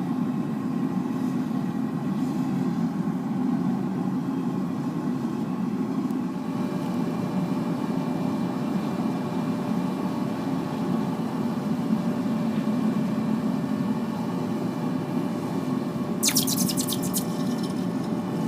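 Forced-air propane burner firing a melting furnace, running with a steady low rushing noise and a faint hum from its blower. A brief cluster of sharp clicks comes about sixteen seconds in.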